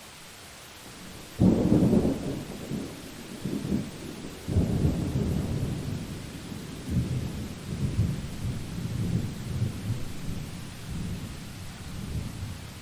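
Thunderclap in a summer thunderstorm: a sudden loud crack about a second and a half in, then a long rolling rumble with a second surge about four and a half seconds in, dying away near the end. A steady hiss runs underneath.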